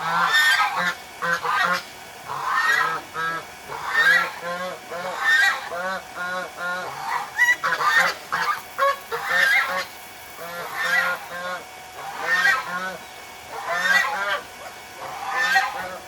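Domestic geese honking over and over, a burst of loud calls about every second and a half.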